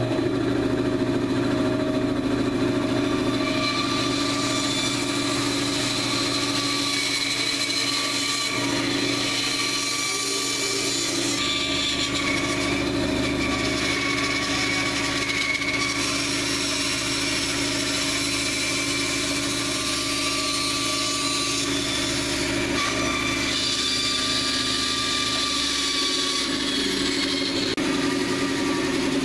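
Bandsaw running steadily, its blade cutting into a section of old log.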